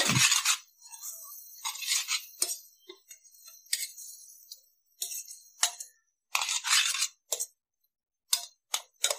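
Spatula scraping and clinking against a stainless steel pot while stirring thick onion paste, in short uneven strokes with pauses between.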